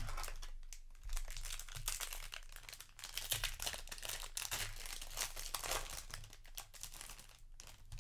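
Foil wrapper of a Magic: The Gathering Innistrad: Crimson Vow set booster pack being crinkled and torn open by hand, a dense crackling that starts about a second in and dies down near the end.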